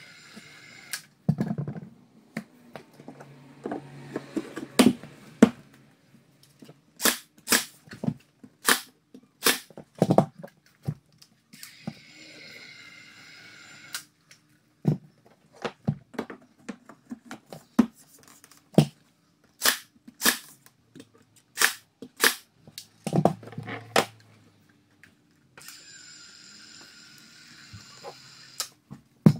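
Cordless caulking gun whirring steadily while it pushes out construction adhesive, in three runs: at the start, about halfway through and near the end. In between, a 23-gauge pin nailer fires a long series of sharp snapping shots as shiplap boards are pinned in place.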